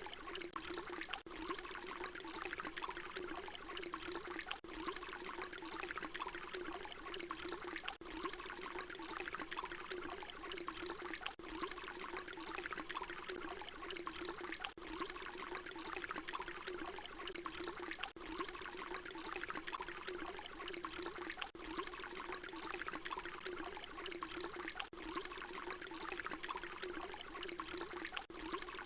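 Water pouring in a steady stream, a continuous splashing trickle. It is a short recording looped over and over, with a brief dip at each join about every three and a half seconds.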